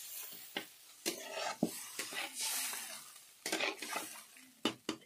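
Flat spatula stirring and scraping a watery tomato-onion masala around a kadhai, with irregular clicks and scrapes against the pan over a faint sizzle.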